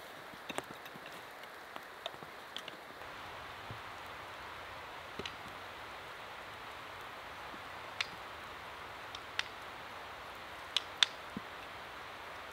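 Sparse sharp clicks and knocks of wooden sticks and tools being handled, over a steady soft outdoor hiss. The hiss grows a little louder about three seconds in, and the two loudest knocks come close together near the end.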